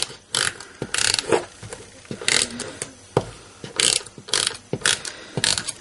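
Cardstock and paper being handled on a craft table: a series of short, irregular rasping scrapes and rustles.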